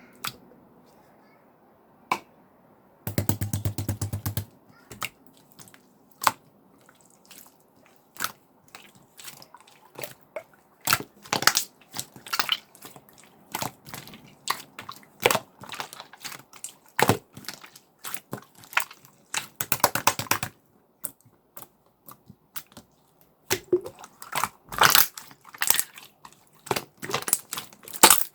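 Blue clear slime being pressed, poked and stretched by hand, giving irregular sticky clicks and pops, with a fast rattle of pops about three seconds in.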